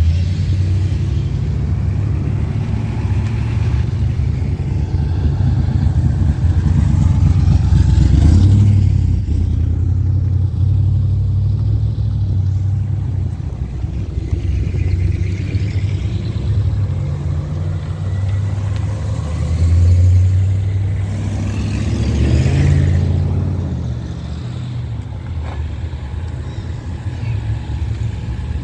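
Classic cars driving slowly past one after another, their engines low-pitched and steady. The engine sound swells as individual cars go by: once about eight seconds in, and twice more close together around twenty seconds in.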